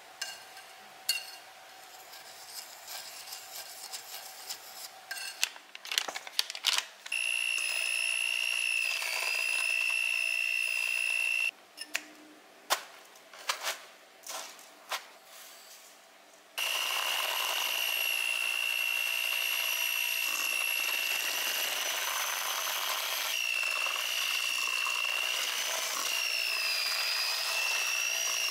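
Electric hand mixer running at a steady high whine, its beaters creaming butter and sugar in a metal bowl. It runs for about four seconds, stops for several sharp knocks and clicks, then starts again about two-thirds in and keeps running. Faint tapping of a wire whisk in flour in a glass bowl comes first.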